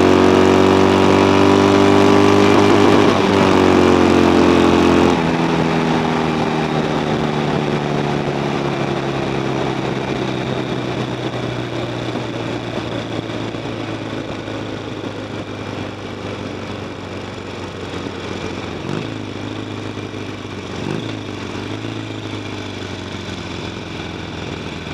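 Harley-Davidson Sportster's air-cooled V-twin pulling hard at high revs, heard from on the bike with wind rush. About five seconds in the throttle closes and the engine drops away, shutting down after a drag-strip pass. It slowly falls in pitch and grows quieter as the bike slows, with a couple of short revs near the end.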